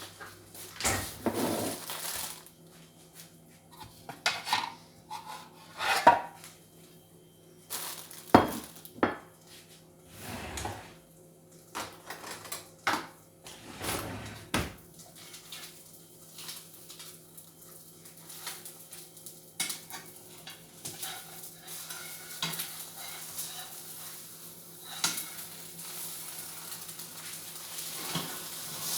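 Kitchen dishes and cutlery clinking and knocking in a series of separate clatters, the loudest about six and eight seconds in, over a low steady hum. A faint sizzling hiss builds near the end.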